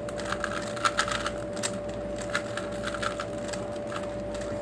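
Plastic 3x3 puzzle cubes being turned by hand: quick, irregular clicking and clacking of the layers, several clicks a second. A faint steady hum runs underneath.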